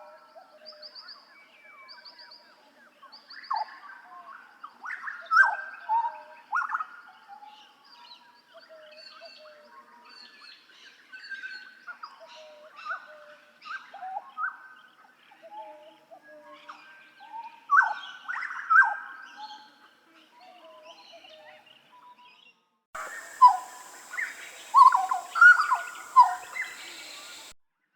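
Butcherbird (jagal papua) singing: a run of loud whistled notes, many sliding sharply down in pitch, with fainter chirps between them. Near the end a hissier stretch of recording brings another burst of loud notes and then cuts off abruptly.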